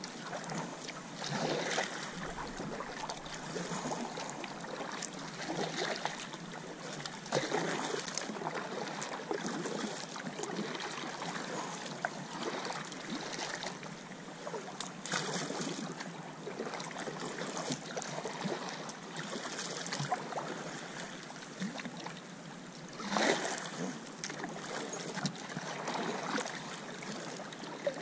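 Double-bladed kayak paddle dipping and splashing in calm sea water as a fishing kayak is paddled along. A steady wash of water is broken every few seconds by louder stroke splashes.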